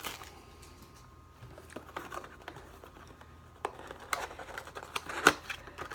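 Trading card packs and cards being handled on a table: faint scattered rustles and light clicks, with sharper clicks about three and a half seconds in and again near five seconds.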